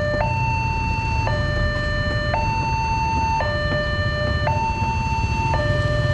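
Railway level-crossing warning alarm sounding through its loudspeaker: a two-tone electronic signal alternating high and low about once a second while the boom barrier rises. A low rumble of engines runs underneath.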